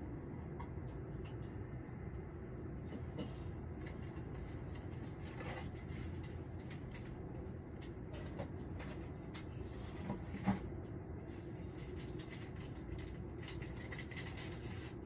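Steady low rumble of distant traffic, with a dog barking in the distance: two short barks close together about ten seconds in, the loudest sounds here, and a fainter one earlier.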